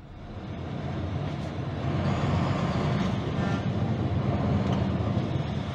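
Heavy truck's engine running, heard from inside the cab: a steady low rumble with road and traffic noise.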